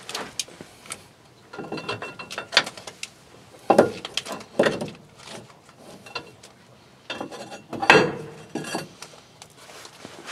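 A wrench turning the mounting bolts that clamp a lift pump and its steel back plate to a truck's frame rail: three bursts of metallic clicking and clinking with short pauses between them.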